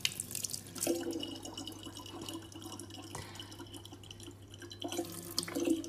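Thin stream of tap water trickling into a large plastic water jug, with faint irregular drips and splashes.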